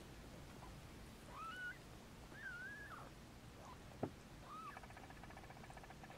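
Newborn kitten mewing faintly: about four short, high, squeaky cries that rise and fall in pitch. A single soft tap about four seconds in.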